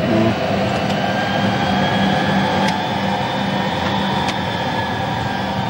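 Jet engines and cockpit running at taxi power, heard from inside the flight deck: a steady drone with several steady whining tones, and two faint clicks.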